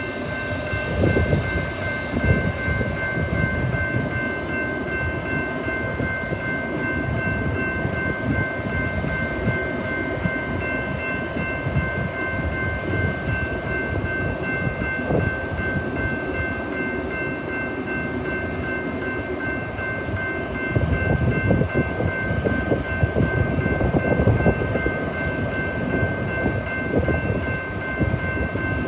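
Metra commuter train moving through the station, with wheels rumbling and clattering on the rails and a few steady high-pitched tones ringing over it. The clatter is loudest about a second in and again about two-thirds of the way through.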